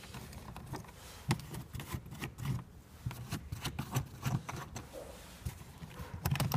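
Plastic battery-box cover being unclipped and lifted off by hand: a series of irregular light clicks and knocks of hard plastic.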